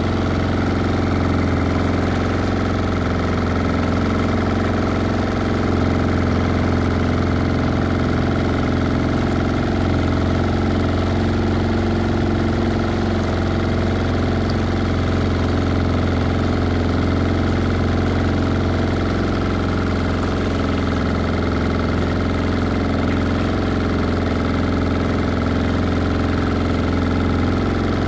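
Boat engine running at a steady speed: an even low hum whose pitch and loudness do not change.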